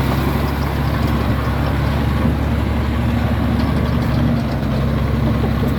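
Komatsu D83E bulldozer's six-cylinder turbo diesel engine running at a steady low speed.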